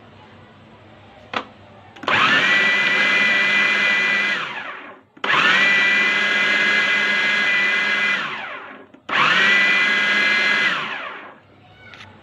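Anex food processor motor run in three pulses of a few seconds each, chopping raw chicken and bread. Each run starts suddenly with a steady high whine and winds down with falling pitch as it stops. A single click comes a little before the first run.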